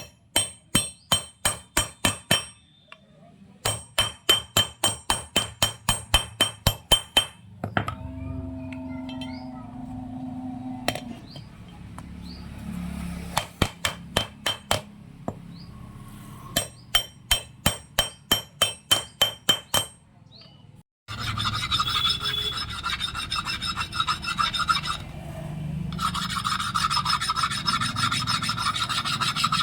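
Quick bursts of hammer blows on ringing metal, about five strikes a second, in four runs of a few seconds each. About two thirds of the way in they give way to a continuous metallic rasping, like filing.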